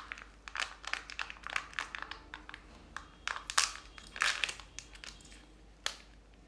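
Kinder Joy egg's plastic capsule and foil seal being handled and peeled open by hand: irregular crinkling and crackling, loudest about halfway through, with one sharp click near the end.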